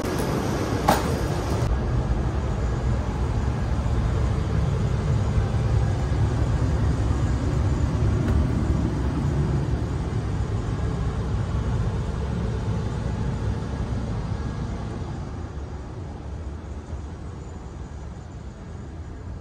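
Steady low rumble of a Hayabusa Shinkansen train standing at the platform with its equipment running, with a single sharp click about a second in. The rumble grows gradually quieter over the last few seconds.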